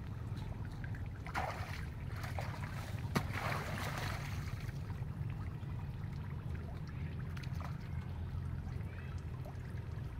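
River water splashing and lapping: two short splashy rushes about one and a half and three seconds in, with a sharp click between them, over a steady low rumble.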